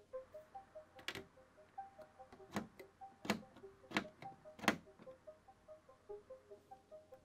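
LEGO bricks clicking together as round bricks are pressed onto a stack: about five sharp clicks over the middle few seconds, the last the loudest. Light background music of short notes runs underneath.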